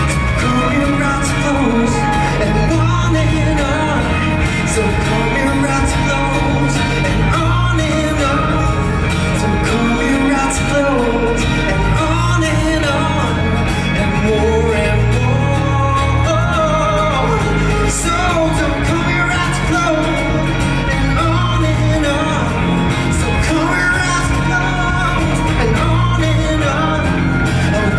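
Live pop-rock band performance: a singer's voice carrying the melody over drums, bass and guitar, with some room reverberation.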